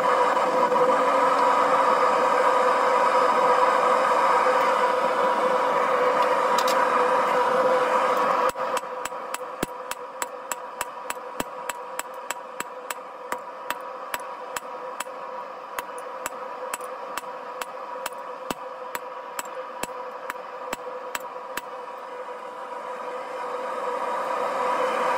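Small propane forge burner running with a steady roar, then a run of hand-hammer blows on hot rebar on a steel anvil, about two or three strikes a second for some thirteen seconds, the forge roar quieter behind them. Near the end the hammering stops and the forge roar swells back.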